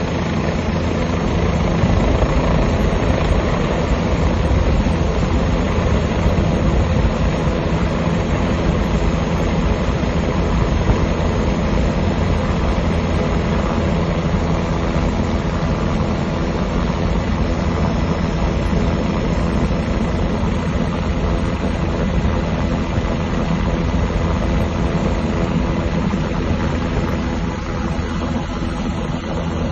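Steady helicopter engine and rotor noise heard from inside the cabin with the door open, dipping slightly near the end.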